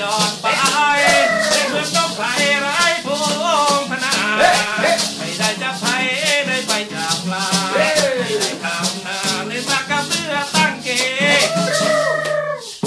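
Live lam-style folk song: a voice singing over strummed acoustic guitar, with a maraca shaking a steady beat. The music breaks off just before the end.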